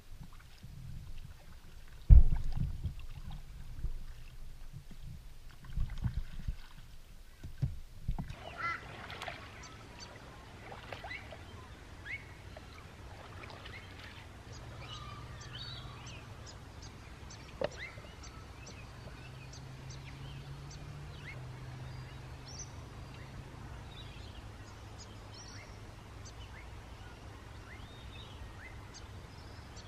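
Paddling a bamboo canoe: irregular paddle strokes and knocks against the boat, with a loud thump about two seconds in. From about eight seconds in, many short bird calls over a steady low hum.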